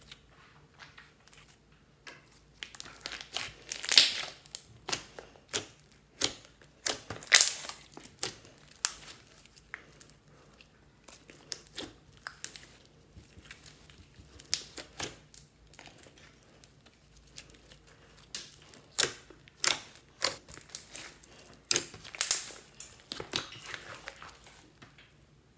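Hands squeezing and poking glossy slime mixed from lipstick and makeup, giving irregular sticky clicks and crackling pops, with a few sharper pops standing out.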